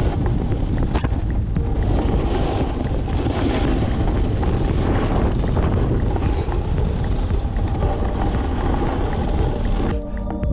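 Wind rushing and buffeting over the microphone during a fast run down a groomed piste, with the board scraping over the packed snow. It cuts off sharply near the end.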